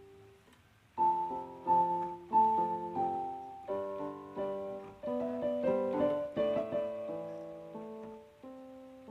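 Background piano music: after a near-quiet first second, a run of struck notes that grows busier in the middle and thins out toward the end.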